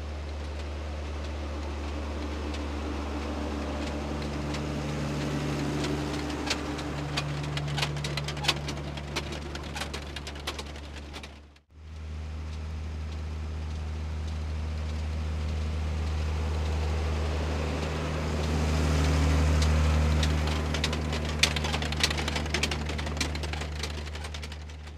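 New Holland T6080 tractor's six-cylinder diesel engine running steadily under load as it pulls a potato planter, growing louder as the tractor nears, with scattered crackling clicks over the drone. The sound breaks off for a moment about halfway through, then resumes.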